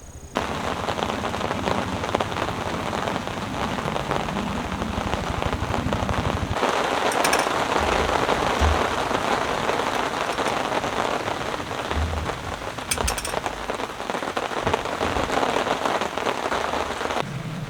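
Heavy rain pouring down hard in a sudden downpour, a dense steady hiss that begins abruptly, with a few low thumps.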